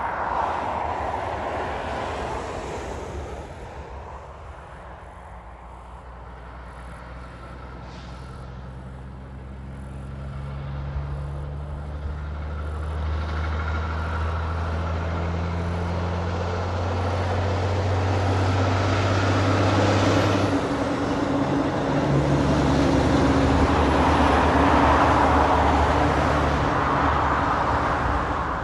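Highway traffic passing: a car's tyre noise at the start, then the steady low hum of a heavy truck's diesel engine, building from about a third of the way in, with tyre roar loudest near the end as it goes by.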